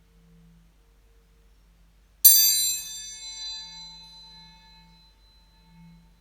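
A small homemade metal singing bowl struck once, giving a bright ring with many high overtones that fades away over about three seconds.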